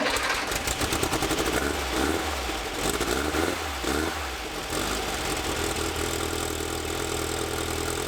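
1964 VW Bus's newly installed air-cooled flat-four engine running just after starting off a jump pack. It runs unevenly with surges in revs for the first few seconds, then settles to a steady idle.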